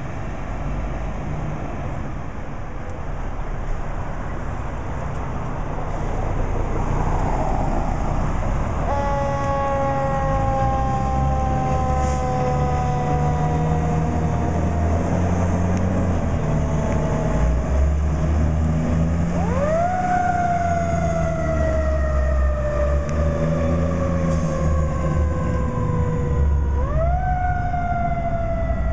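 Fire apparatus responding to a call: a heavy truck engine rumbling, louder from about six seconds in. A siren comes in about nine seconds in, falls slowly in pitch, and twice climbs quickly and slides down again in a slow wail.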